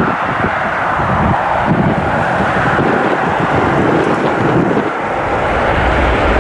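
Gusty wind buffeting the microphone over the steady rumble of a jet airliner's engines.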